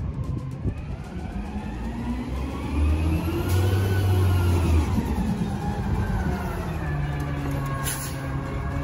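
Garbage truck's diesel engine revving up and easing off as it pulls in close, its note rising and falling and growing louder.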